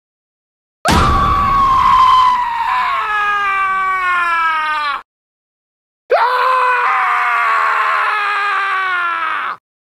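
Two long, high-pitched screams from a voice, each sliding down in pitch, with about a second of silence between them.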